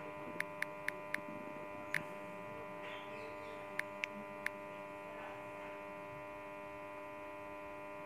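Steady electrical mains hum with many overtones, broken by eight short, sharp clicks in the first four and a half seconds: taps on the phone's on-screen keyboard, one for each letter as "download" is typed into a search box.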